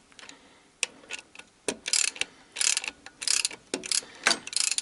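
Hand ratchet clicking in a run of short bursts, about six of them, as it is swung back and forth to tighten connecting-rod cap nuts.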